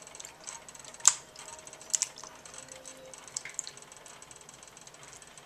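Hands squishing canned tomatoes in a small stainless steel saucepan: faint wet squelching with scattered sharp clicks, the two loudest about one and two seconds in.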